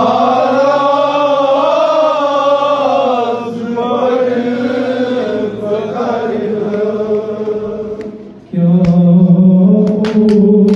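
Men chanting a Kashmiri noha, a Shia lament sung without instruments: a lead voice holds long, wavering phrases with others joining in, then about eight and a half seconds in the group comes in louder on a steady lower note. Near the end, sharp slaps begin, typical of hands striking chests in matam.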